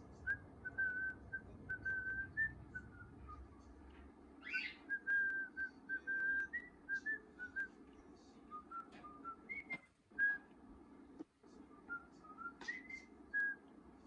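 A person whistling a simple tune in short, clear notes that step up and down in pitch, to a cockatiel chick. Brief sharp cockatiel calls cut in about four seconds in and again near the end, from other cockatiels answering the whistling.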